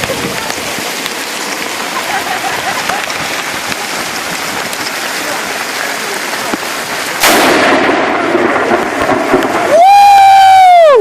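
Steady patter of rain and hail, then about seven seconds in a sudden, very loud thunderclap from lightning striking a few feet away, with a rumble trailing after it. Near the end a person lets out a long, loud yell.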